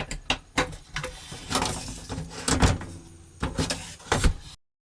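Irregular clicks and knocks of the RV exit window's latch hardware being handled and worked after the new clip has been riveted on, with several louder knocks. The sound cuts off suddenly near the end.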